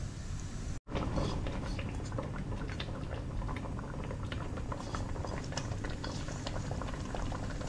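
Food bubbling and sizzling in pots on the stove: a steady faint hiss dotted with many small pops, with soft wet sounds of thick yogurt marinade being scraped by hand from a kadai into the pot. The sound cuts out for a split second about a second in.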